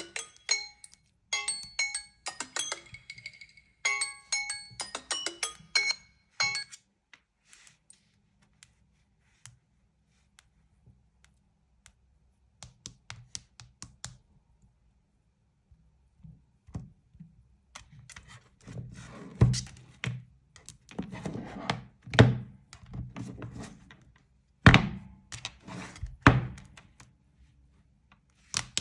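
A smartphone chime tone plays in short repeated phrases for about six seconds, then stops. After a stretch of faint clicks, several dull thumps and knocks follow over the last ten seconds, the loudest about a third of the way from the end.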